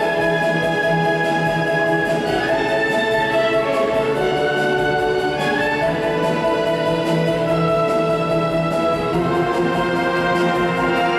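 Youth symphony orchestra playing slow sustained chords, brass prominent over strings, with the harmony shifting every second or two.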